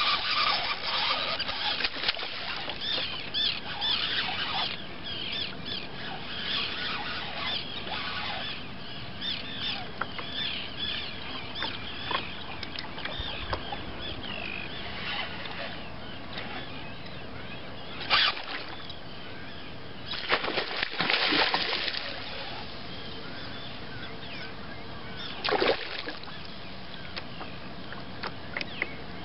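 Many birds calling in short chirps across open water, thickest in the first half. A sharp water splash a little past halfway, a longer spell of splashing soon after, and another splash near the end.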